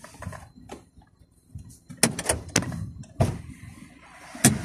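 Irregularly spaced sharp clicks and knocks inside a car cabin: a couple of faint ones in the first second, then louder knocks from about two seconds in, the loudest near the end.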